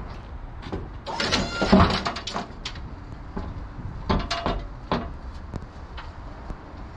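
Hard objects knocking and clattering as they are handled and dropped: a loud, ringing clatter about a second in, then a few sharp separate knocks between about four and five and a half seconds.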